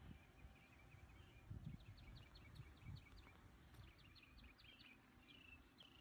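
Faint outdoor birdsong: small birds chirping in quick runs of short high notes, with a few low soft thumps.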